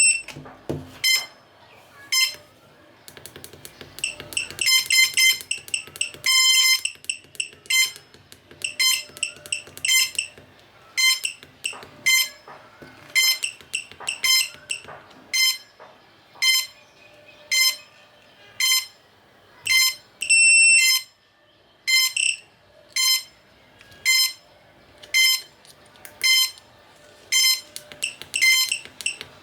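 A series of short electronic beeps, roughly one a second, with a few quick runs of beeps and one longer tone in between.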